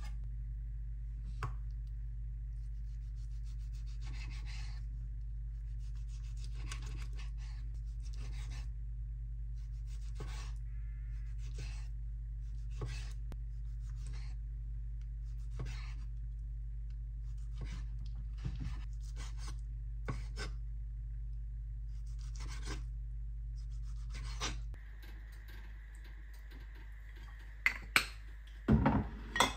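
Chef's knife cutting raw tuna into cubes on a wooden cutting board: irregular knocks and scrapes of the blade on the board, over a steady low hum. A few louder knocks near the end.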